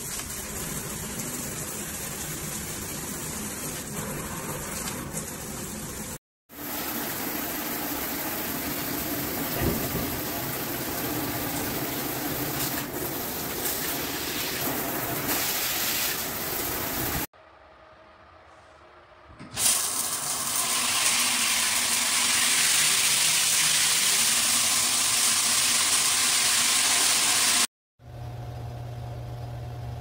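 Handheld shower head spraying water onto a tiled wall, a steady hiss of spray, in several separate takes with abrupt cuts between them. Just past the middle it drops to a faint hiss for a couple of seconds, then a louder, stronger spray starts suddenly.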